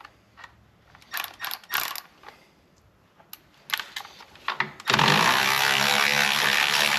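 Small metallic clicks and clinks of tools and parts being handled, then about five seconds in a cordless power tool's motor starts and runs steadily at full speed.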